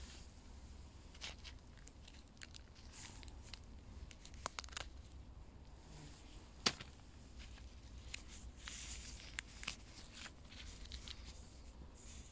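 Scattered faint crackles and snaps as oyster mushrooms are broken and pulled off a decaying log by a gloved hand, with one sharper snap about six and a half seconds in.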